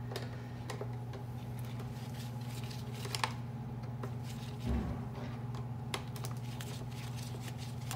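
Faint scattered clicks and ticks of a small screwdriver backing screws out of a robot vacuum's plastic underside, with a soft thump about halfway through, over a steady low hum.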